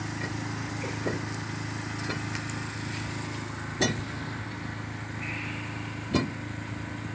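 A small engine running steadily, with two sharp knocks, one about four seconds in and one about six seconds in.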